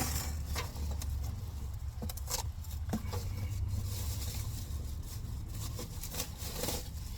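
Scattered rustles and light knocks as a toaster oven's cardboard box and packing are handled, over a low steady hum.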